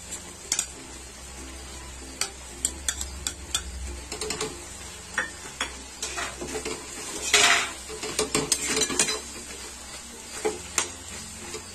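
A metal spatula stirring bottle gourd and coarse ground peanut in a metal kadai, scraping and clicking against the pan at irregular moments, the loudest scrape about seven and a half seconds in.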